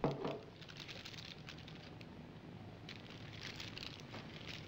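A glass ketchup bottle knocks down onto a hard table, then a paper burger wrapper crinkles and rustles as hands handle the burger.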